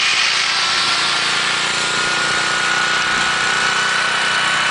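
Electric drill with a paddle mixer running steadily, stirring a bucket of red polyurethane sealer; its motor whine creeps slowly upward in pitch.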